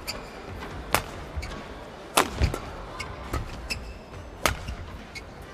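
Badminton rally: rackets striking the shuttlecock with sharp cracks, three hard hits spaced one to two seconds apart, over the low hum of an arena crowd.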